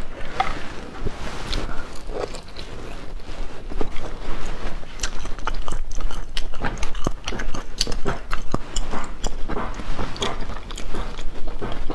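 Close-up chewing and biting of spicy stir-fried sea snail meat, a dense run of short sharp mouth clicks.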